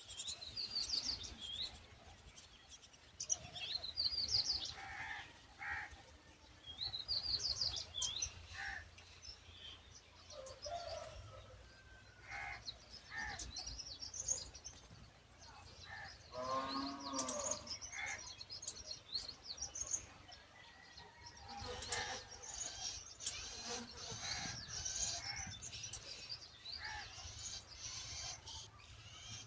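Myna birds calling: scattered bursts of quick, high chirps, a lower, harsher call with several overtones about two-thirds of the way through, and denser chirping near the end.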